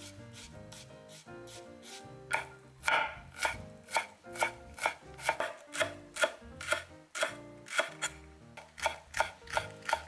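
A chef's knife slices a Japanese leek into thin rounds on a bamboo cutting board. The blade knocks on the board in an even rhythm, about two to three strokes a second, starting a little over two seconds in.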